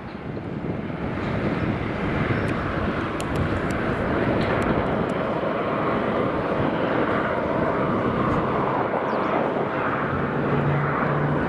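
Let L-410 Turbolet's twin turboprop engines in climb-out, a steady engine noise that swells over the first two seconds and then holds, with a low steady hum coming in near the end.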